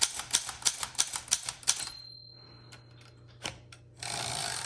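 1914 Corona 3 typewriter: keys struck in quick succession, about six clacks a second, for the first two seconds. Then the margin bell rings once and fades, and near the end comes a short sliding rush as the carriage is returned.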